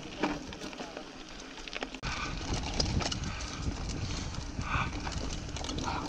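Mountain bike rolling down a dirt forest singletrack: tyre noise on the trail and the bike rattling and clattering over bumps, with wind rumble on the microphone. About two seconds in the sound changes abruptly and becomes louder and heavier.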